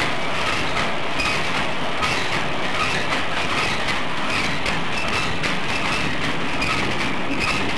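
Peanut swing oven roaster running: flour-coated peanuts rattling and sliding in the tray as it swings with a plane-rotary motion, a steady mechanical clatter.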